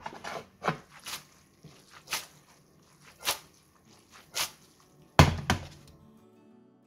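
A frying pan of spaghetti being shaken and tossed on a stovetop, knocking about once a second. Two loud knocks come close together about five seconds in as the pan comes down on the hob.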